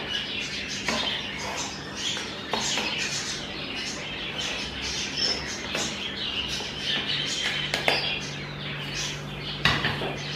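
Parboiled rice being tipped and shaken from a stainless-steel colander into a nonstick pot: soft rustling of the grains with scattered light clicks and scrapes of the steel against the pot.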